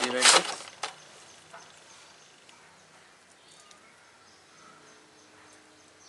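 Laptop DVD writer drive being handled and slid into its bay: a brief loud scraping rattle of plastic and metal at the start, then a single sharp click just under a second in. After that only low background noise.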